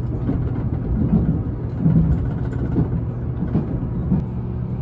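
Running noise inside a Meitetsu 1000 series Panorama Super electric train in motion: a steady low hum with uneven knocks.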